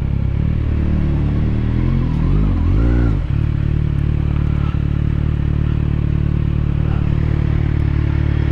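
Motorcycle engine running steadily at idle. A second engine note rises and falls briefly about two to three seconds in.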